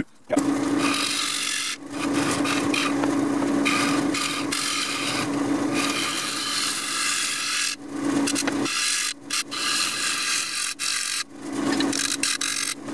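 Gouge cutting into the face of a wooden bowl blank spinning on a wood lathe, hollowing out the inside of the bowl, a steady hiss of shavings over the lathe's hum. The cutting breaks off briefly a few times between passes.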